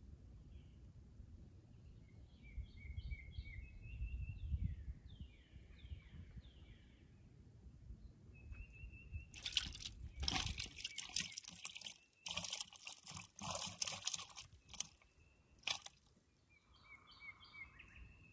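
Small birds chirping and trilling in short repeated phrases, broken about halfway through by several seconds of loud crackling rustle that stops and starts a few times and ends suddenly, after which the bird calls return.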